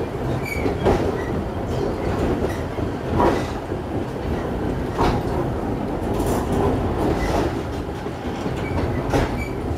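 Myoken Cable funicular car running down its track: a steady rumble of steel wheels on the rails, broken by irregular clacks every second or two.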